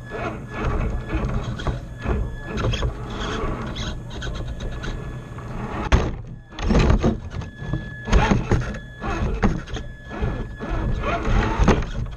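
R/C scale rock crawler heard from its own onboard camera as it climbs over rocks: a whining electric drivetrain with irregular thunks and scrapes of tires and chassis on the rocks, the hardest knocks about six seconds in.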